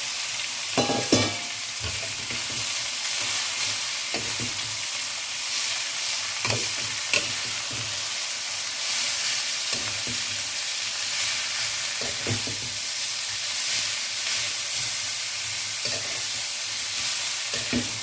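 Alfalfa sprouts stir-frying in hot oil in a pan with chicken and fried tofu skin: a steady sizzle, with a short knock or scrape from the stirring every few seconds.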